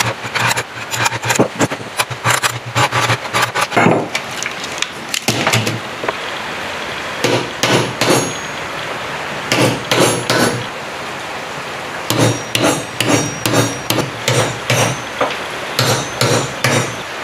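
Hammer striking a long steel chisel driven down through the copper windings of a generator stator to cut them out, with metallic strikes. The strikes come rapidly for about four seconds, pause for about three seconds, then return in clusters, steadier at about two a second near the end.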